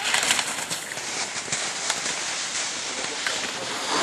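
Slalom skis scraping on hard snow through the turns: a steady hiss with a few sharp clicks near the start.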